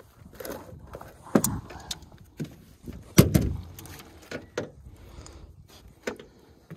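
Scattered knocks and clunks against an aluminum boat's hull and floor as fishing gear and a landed catfish are handled. The two loudest thumps come about a second and a half in and about three seconds in.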